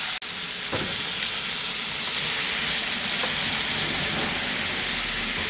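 Hot mustard oil sizzling steadily in a frying pan under freshly added boiled vegetables.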